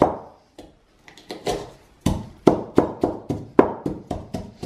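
Ceramic pestle pounding garlic and rosemary in a ceramic mortar, bruising the rosemary and smashing the garlic. One strike, a short pause with a few light taps, then steady knocks about three or four a second.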